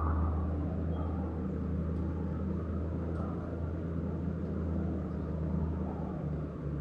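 Diesel engine of a heavy construction machine running steadily at low speed, a continuous low hum.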